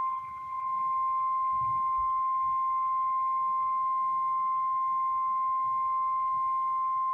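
NOAA Weather Radio 1050 Hz warning alarm tone: a single steady, loud electronic tone held without change. It is the alert signal that precedes a new weather warning message.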